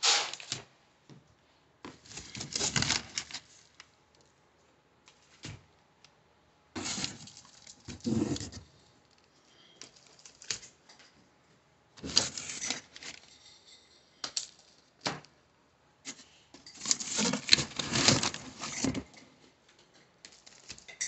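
Plastic spools of electrical wire being picked up and knocked against one another, clattering in irregular bursts of a second or two with short pauses between.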